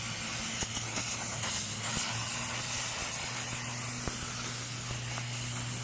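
Aerosol brake cleaner spraying in one long continuous hiss into a transmission oil pan to wash it out, with a few light clicks, cutting off near the end.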